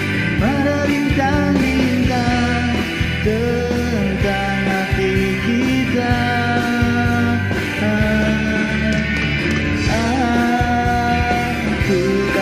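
Pop-rock karaoke backing track: full band accompaniment with a melodic lead line of long held, bending notes, and no clear lyrics.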